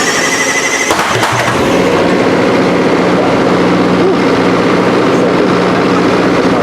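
Drag-racing engine being started: a high starter whine for about the first second, then the engine catches and settles into a loud, steady idle.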